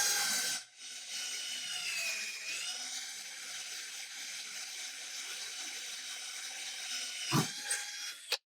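Electric drill boring a pilot hole through metal: a loud burst at the start, then a steady whine that dips in pitch about two seconds in, a knock near the end, and the drill stops.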